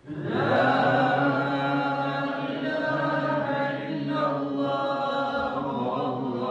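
Men's voices chanting a slow, melodic Islamic religious chant with long held notes, starting suddenly at full strength.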